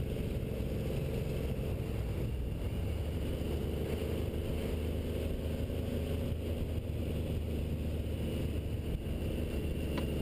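Triumph motorcycle's engine running steadily at road speed, heard from the bike-mounted camera with wind and road rush over it.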